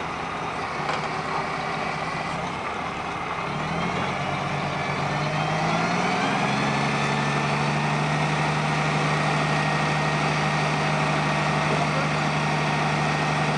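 Dump truck's diesel engine idling, then revving up a few seconds in and holding a steady higher speed as it drives the hydraulic hoist that raises the dump box to unload.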